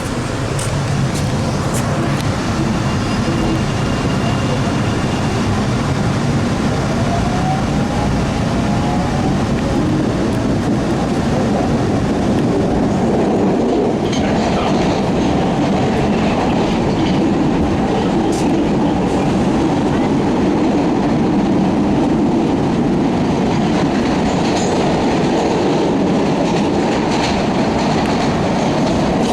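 MBTA Orange Line CRRC 1400-series subway car running, heard from inside the car: steady wheel and rail noise with clickety-clack. A faint rising motor whine comes about a quarter of the way in as it picks up speed, and the running noise grows denser about halfway through.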